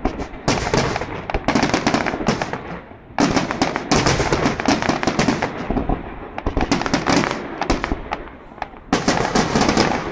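Fireworks display: dense volleys of shell bursts and crackling bangs, with a sharp new volley about three seconds in and another near the end, and a lighter stretch in between.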